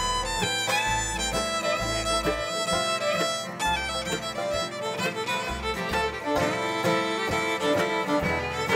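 Bluegrass band playing an instrumental break, the fiddle leading with long bowed notes and slides over acoustic guitar, mandolin, banjo and upright bass.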